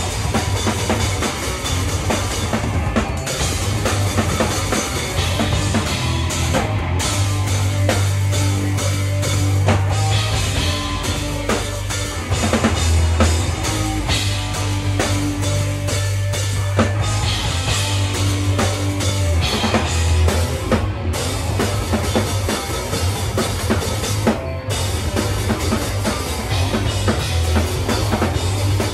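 A live rock band playing loudly, with the drum kit (bass drum and cymbals) prominent, heard from right beside the drums, over electric guitar and bass. The band breaks off briefly a few times.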